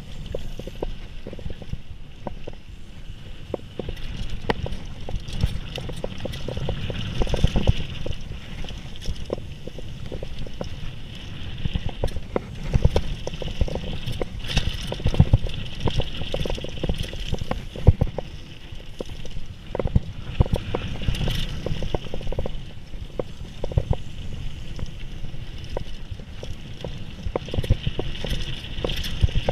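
Mountain bike riding down a dirt flow trail: a steady rumble of tyres on dirt, with frequent knocks and rattles from the bike over bumps.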